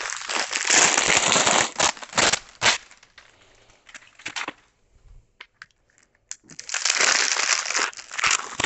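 Plastic wrapping crinkling and crackling as it is pulled off a new cricket bat, in two spells: one over the first three seconds, then again for the last two seconds, with a few clicks in between.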